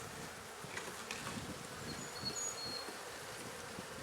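Honey bees buzzing in a steady hum around an open hive they have just been relocated into, with a couple of faint knocks about a second in.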